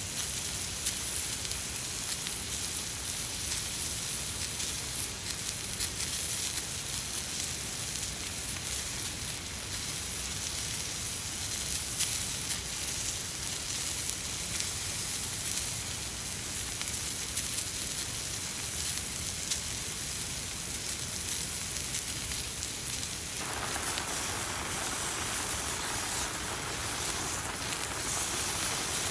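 Steady rain falling, with scattered sharp crackles. About 23 seconds in, the patter of rain on a surface grows fuller and louder.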